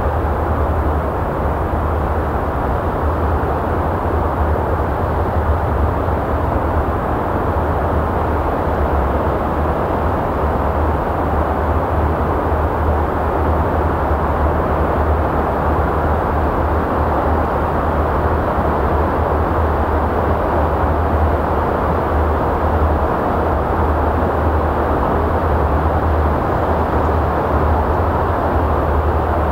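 Sea waves washing in over a shallow sandy shore: a continuous, deep, steady surf wash with no single break standing out.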